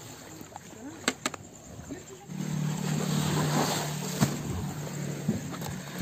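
A couple of sharp clicks of gear being handled, then about two seconds in an engine starts running steadily in the background.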